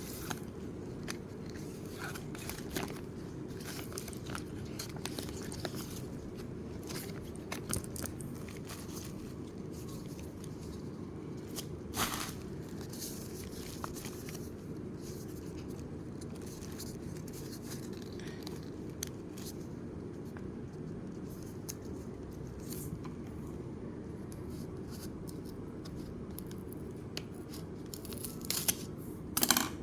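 Packaging being handled and opened: scattered rustles, clicks and tearing, with a louder burst partway through and another near the end, over a steady low background hum.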